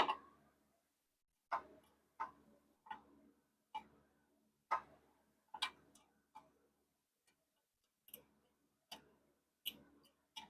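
Sharp metallic clinks and taps of hand tools against metal parts on a generator, about a dozen irregular strikes roughly a second apart. The first is the loudest.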